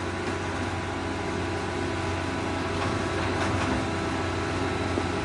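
Monarch engine lathe running under power: a steady hum from the motor and headstock gearing, with the chuck turning at a low spindle speed.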